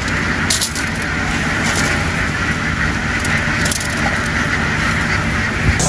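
An engine running steadily under a continuous noisy hiss, with a few faint crackles.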